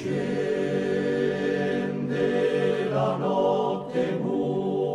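Background music: a choir singing slow, held chords, the notes changing about every second.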